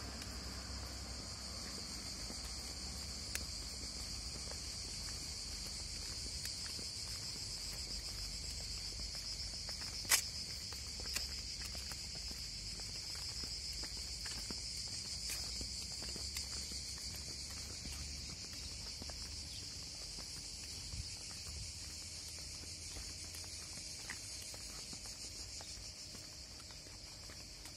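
A steady, high-pitched chorus of cicadas buzzing in the summer heat, with scattered faint clicks and one sharp click about ten seconds in.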